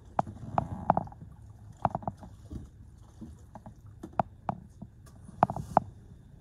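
Cloth scrubbing a car's floor carpet: low rubbing with irregular sharp taps and knocks, several in quick succession about two seconds in and again near the end.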